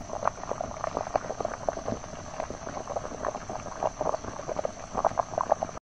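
Soft rustling with many small irregular crackles, the sound given for a millipede crawling over dry leaf litter, over a steady high hiss. It cuts off suddenly near the end.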